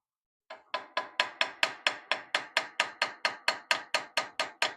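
Rapid, even hammer taps, about five a second, driving a brass inlay into a dovetailed groove in a wrought iron cross-guard; each tap rings briefly.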